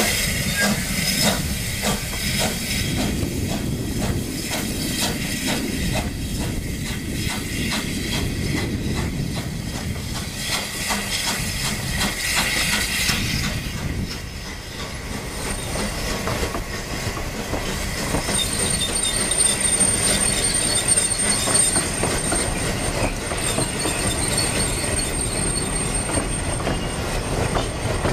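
Narrow-gauge steam locomotive No. 190 'Lyd' pulling a train away: an even beat of exhaust chuffs, about two a second, for the first half. After that the carriages roll past and a thin, high wheel squeal sets in and holds for most of the rest.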